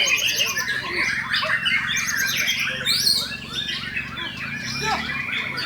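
White-rumped shama (murai batu) singing a fast, varied competition song of rapid whistles and repeated trilled notes. A faint steady low hum lies underneath.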